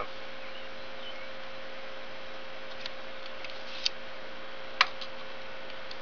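A steady hum, with a few short, sharp clicks from hands handling tools and wood, about a second apart in the second half.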